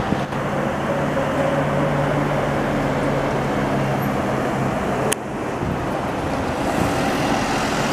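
A vehicle running steadily: a low, even motor hum over travel noise. It breaks off abruptly about five seconds in, at an edit, and continues as similar steady running noise without the hum.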